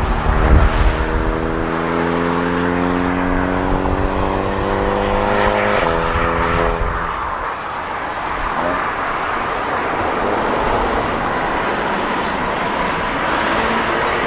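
Airliner's jet engines spooling up for takeoff: a whine of several tones rises slowly for about six seconds, then gives way to a steady rushing noise of engines at takeoff thrust.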